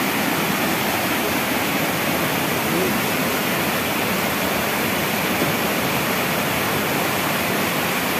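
Heavy overflow from a full dam pouring as a waterfall down a rock face, a loud, steady rush of falling and splashing water.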